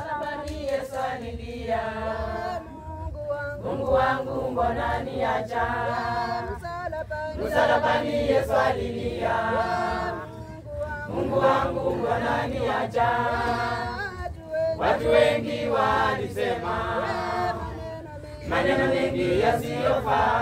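A church choir of mostly women singing a Swahili hymn without instruments, in sung phrases of a few seconds each with short breaks between.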